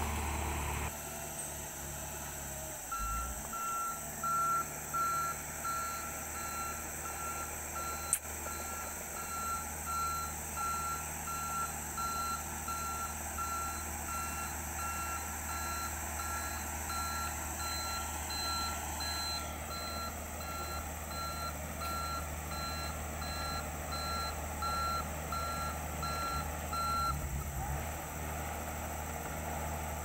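Komatsu D31EX crawler dozer backing up, its reverse alarm beeping evenly about one and a half times a second from about three seconds in until near the end, over the low steady run of its diesel engine. A single sharp click about eight seconds in.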